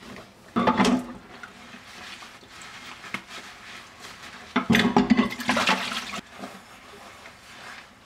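Dishwashing at a stainless-steel sink: water splashing and sloshing as dishes are scrubbed with rubber-gloved hands. There are two loud bursts, a short one about half a second in and a longer one around five seconds in.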